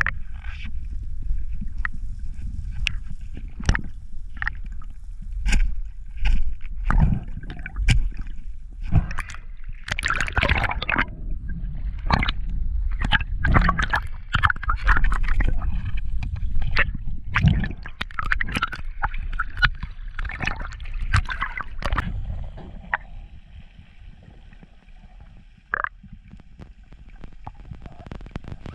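Water splashing, sloshing and gurgling with many irregular knocks and clicks. About three quarters of the way through it quietens to a faint steady whine with an occasional click.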